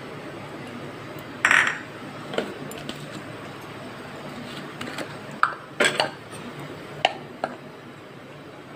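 Kitchen utensils clinking against a steel mixing bowl and small bowls: about six short, separate clinks and knocks, the loudest about a second and a half in and a close pair near six seconds in.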